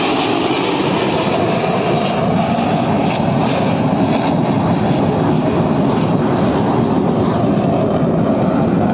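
Jet engine noise from a formation of KAI T-50B jets flying over: a loud, steady rushing drone with a faint tone that drifts slowly in pitch.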